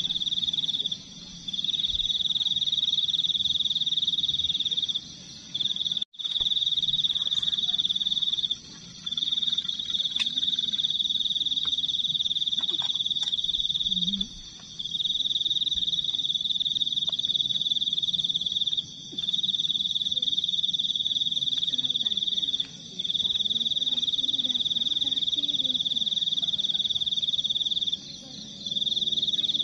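A night-calling animal's loud, high-pitched trill, one unbroken tone that stops briefly about every four to five seconds and then starts again. Faint clinks of a spoon and cookware lie underneath.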